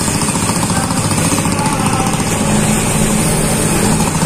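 Home-built diesel-engined motorcycle running steadily at road speed, its engine giving a rapid, even chugging knock.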